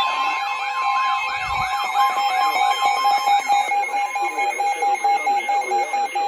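Emergency alert attention tones: a steady tone held throughout, joined for the first half by a second, higher steady tone, over a fast warbling siren-like tone that sweeps up and down about three times a second. These tones announce an incoming severe thunderstorm warning.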